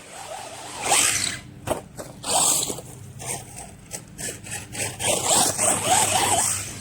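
Electric RC monster truck on a 3S battery driven in bursts of throttle: the motor whines up and down and the tyres scrabble in dirt.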